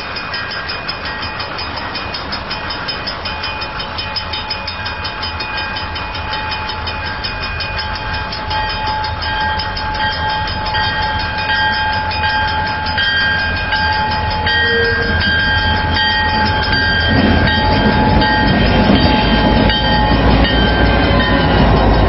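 Level-crossing warning bell ringing steadily while CN EMD SD40-2W diesel locomotives approach. Their low engine and wheel rumble grows steadily louder and is loudest near the end as the lead unit reaches the crossing.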